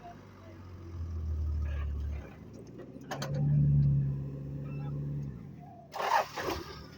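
Four-wheel-drive engine running, then revved harder for about two seconds as it strains to pull a bogged vehicle backwards through soft sand. A brief voice near the end.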